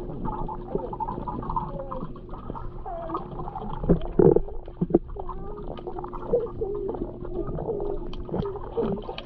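Swimming-pool water heard underwater: muffled gurgling and burbling over a steady low hum, with a few dull knocks about four to five seconds in.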